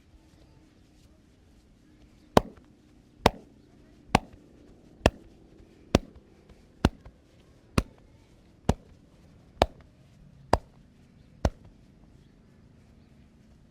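Massage hand strikes on the body: eleven sharp slaps at an even pace of about one a second, starting a couple of seconds in.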